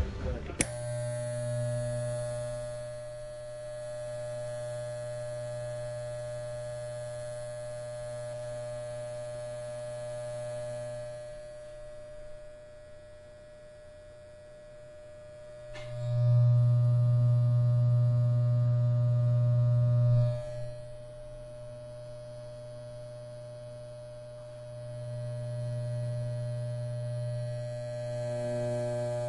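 Electric hair clippers buzzing with a steady hum. They run in spells, loudest for a few seconds in the middle and again near the end.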